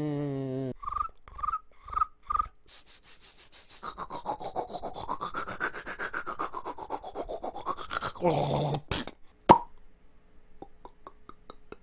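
Mouth-made sound-effect imitations in quick succession: four short cricket chirps, then several seconds of fast, even scrubbing like an electric toothbrush, then a sharp pop like a wine bottle being uncorked, followed by faint little trickling ticks.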